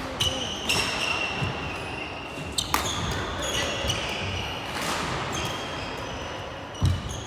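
Badminton rally: several sharp racket strikes on the shuttlecock and high squeaks of court shoes on the wooden floor, with a dull thump near the end.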